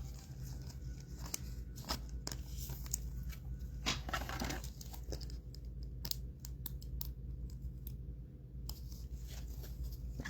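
Trading cards and their foil pack wrappers being handled: a run of light clicks and rustles, with a short crinkling tear about four seconds in, over a steady low hum.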